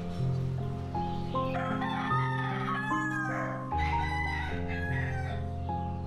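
A rooster crowing once, a long rising-then-falling call in the middle, over gentle instrumental background music.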